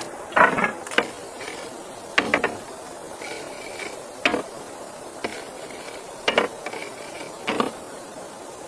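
Irregular short knocks and clicks, often two or three close together, coming every second or two.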